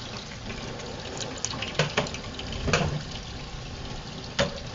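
Kingfish sizzling on a Weber grill: a steady hiss broken by a handful of sharp pops and crackles.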